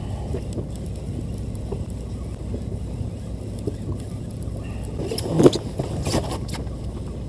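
Fishing boat's engine running with a steady low rumble, with a short burst of louder knocks and rattles about five seconds in.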